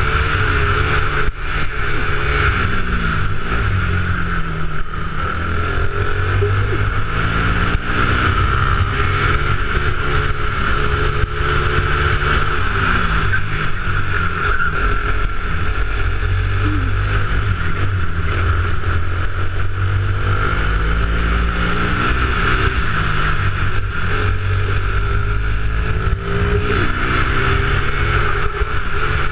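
A 270cc go-kart engine heard onboard at racing speed, its revs repeatedly falling and rising again as the kart goes through the corners.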